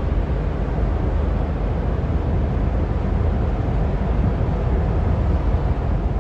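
Steady low rumble with a hiss over it from a cargo ship under way in the canal, its engine drone carrying across the water.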